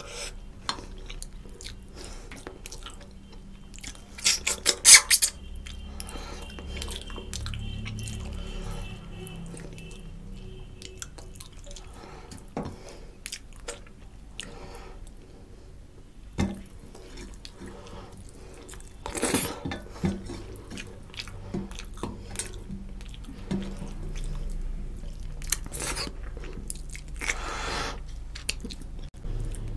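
Close-miked eating of fish curry and rice by hand: wet chewing and lip smacks throughout, with three louder clusters of mouth noise about four seconds in, about two-thirds of the way through, and near the end.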